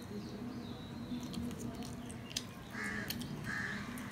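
A man chewing a mouthful of luchi, with small mouth clicks and smacks. Twice in the second half, a bird gives a harsh call.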